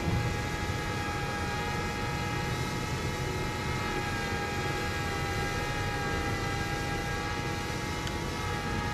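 A quadcopter camera drone in flight: the steady whine of its propellers, several pitches sounding together.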